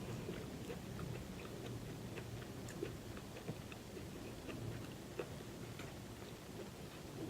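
Close-up mukbang eating: a person chewing seafood-boil food, with scattered small clicks and smacks.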